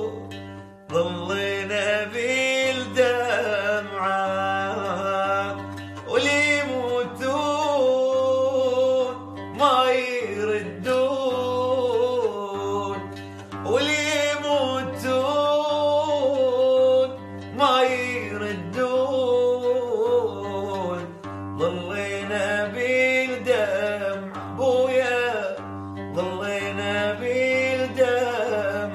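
A man singing an Arabic song in long, ornamented phrases of a few seconds each, with short breaks between them, over instrumental accompaniment and a steady low drone.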